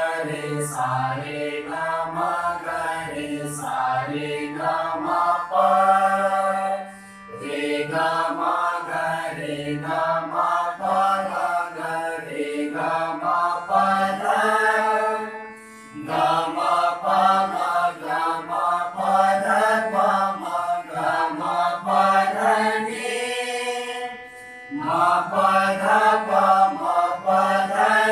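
A mixed group of voices singing Indian sargam scale exercises (alankar) in unison, accompanied by a harmonium. The singing comes in long phrases with three short breaks between them.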